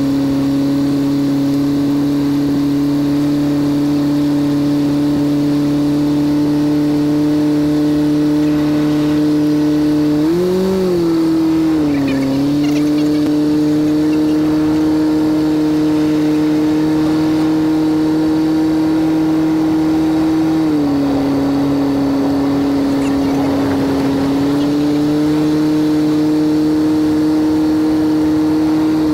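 Cessna 152's Lycoming four-cylinder engine and propeller droning steadily while taxiing, heard from inside the cabin and played back sped up. The engine note briefly rises and falls about a third of the way in, drops slightly about two-thirds in, then rises again near the end as power is added.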